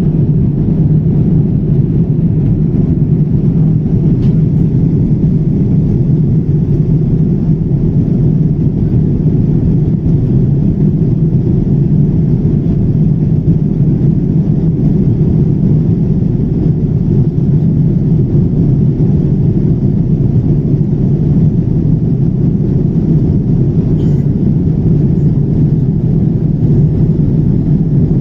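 Airplane engine noise: a loud, steady low rumble that never rises or falls, with none of the swell and fade of a plane passing over.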